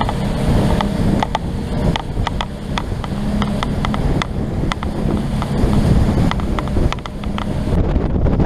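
Evinrude outboard motor running under way as the boat pounds through rough water, with heavy wind buffeting the microphone and frequent sharp ticks and knocks throughout.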